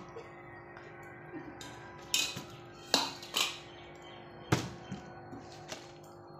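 Six or so sharp knocks and clinks in irregular succession, the loudest around two to four and a half seconds in, over steady background music.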